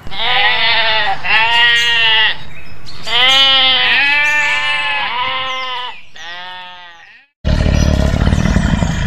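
Domestic sheep bleating, about six long wavering bleats in quick succession, the last ones fading. About three-quarters of the way through, the bleats give way to a loud, low, rough growl from a tiger cub.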